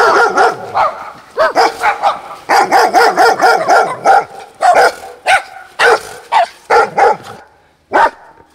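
Dog barking loudly, a quick run of many short barks several a second, with one last bark near the end.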